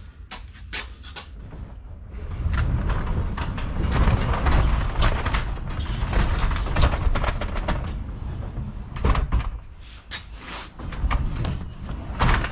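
Newly installed sectional garage door being raised by hand on its first test after the torsion springs were wound, its rollers rumbling and clacking along the metal tracks. A few clicks at first, then a steady rolling rumble from about two seconds in, easing briefly near nine seconds before rolling again.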